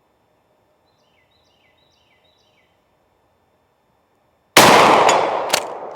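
A single shot from a Remington 870 pump-action 12-gauge shotgun firing a slug, a sudden loud blast about four and a half seconds in that echoes away over a second or so.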